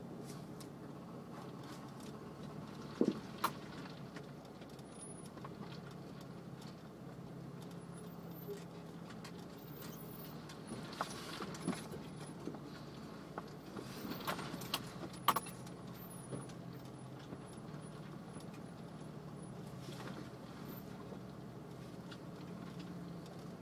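Jeep engine running low and steady while crawling the trail, heard from inside the cab, with sharp clicks and rattles inside the vehicle: a pair about three seconds in, and a cluster from about eleven to fifteen seconds in.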